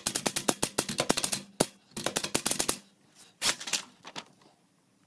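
Manual typewriter being typed on fast, a quick run of key clacks for about three seconds. A few more sharp strokes follow as the sheet is pulled from the roller, then it goes quiet.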